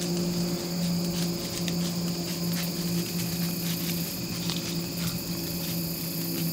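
Evening chorus of crickets and other insects, a steady high-pitched trilling, over a low steady hum that drops out briefly now and then.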